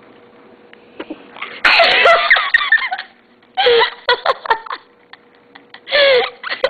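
A little girl forces out a sudden, loud sneeze about one and a half seconds in. Bursts of laughter and giggling follow.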